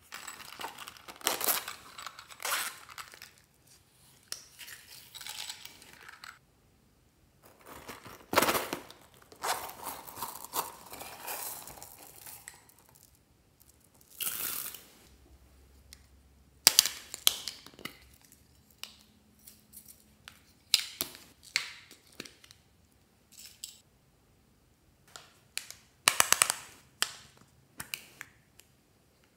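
Hands handling small cases and plastic containers and tipping beads and glitter onto slime in a glass dish: a string of separate rustles, clicks and rattles, with the sharpest clicks around the middle and near the end.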